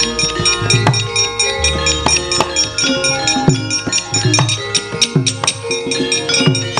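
Javanese gamelan playing: kendhang hand-drum strokes with a falling pitch over ringing bronze metallophones.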